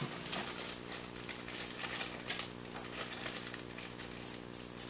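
Faint rustling and ticking of a small cardboard blind box being handled and opened, over a steady low hum.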